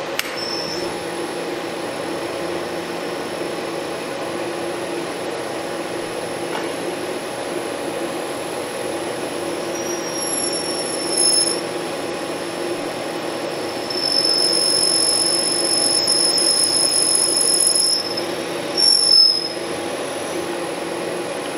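Milling machine spindle turning a lubricated 9 mm stepped reamer through a freshly pressed-in valve guide in an air-cooled Porsche 911 cylinder head, sizing the guide bore that pressing has squashed. It makes a steady hum with a high-pitched squeal from the cutting reamer: brief about halfway through, louder for about four seconds after that, and brief again near the end.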